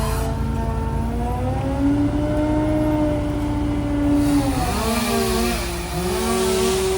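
Engines of tree-work power equipment running at changing speeds: their pitches hold, then drift up and down and cross each other about halfway through, with a rushing noise coming in about four seconds in.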